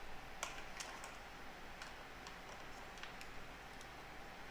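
A few faint, irregularly spaced light clicks over quiet room tone.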